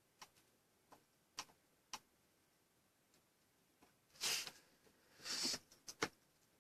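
Faint, scattered single clicks from a computer mouse and keyboard, roughly a second apart, with two short rustling handling sounds about four and five seconds in.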